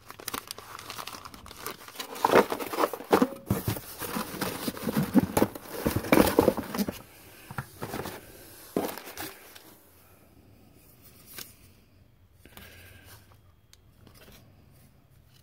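Clear plastic bag crinkling and tearing as a rifle handguard is unwrapped from it. The crackle is dense for about the first seven seconds, then thins to scattered rustles and light clicks.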